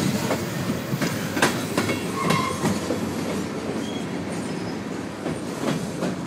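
Freight train of tank cars and boxcars rolling past at close range and across a low bridge just overhead. A steady rumble runs under irregular clacks of steel wheels over the rail joints.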